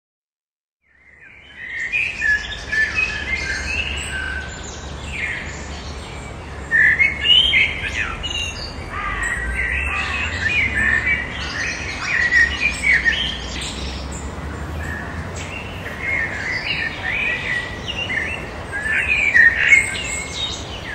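Small songbirds chirping and singing, many short calls and trills, starting about a second in, over a steady low rumble.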